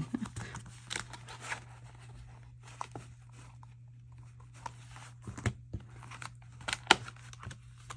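Rustling and crinkling of a clear plastic folder, with scattered light clicks and taps, as a magnet sheet holding thin metal cutting dies is worked into the tight pocket. A steady low hum sits underneath.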